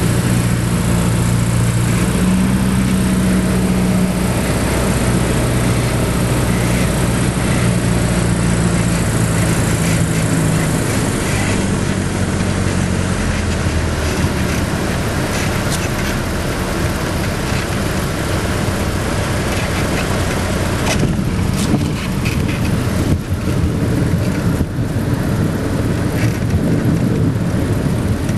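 Single-engine light aircraft's piston engine and cabin noise heard from the cockpit while landing: the engine runs steadily, then eases off about eleven seconds in as power comes back. Irregular bumps and rattles come through in the last seven seconds as the plane reaches the runway.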